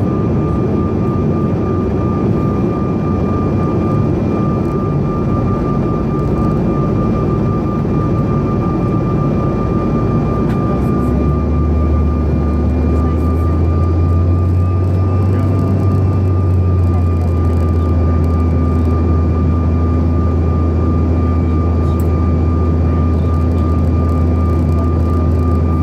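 Steady cabin noise of a CRJ-900 regional jet in flight, its rear-mounted GE CF34 turbofans and rushing air heard from inside the cabin with a steady high tone over it. About eleven seconds in, a deep low hum sets in and holds.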